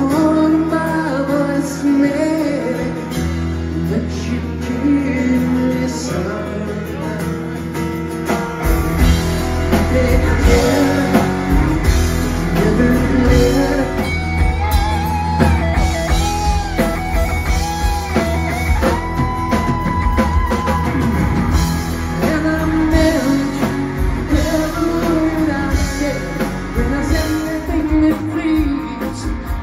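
Rock band playing live, a male lead vocal over electric guitar, with drums and bass filling out the sound about nine seconds in.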